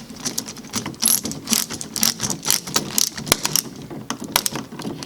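Screwdriver tightening a terminal screw on a wall switch: a run of quick, irregular mechanical clicks, several a second, easing off near the end.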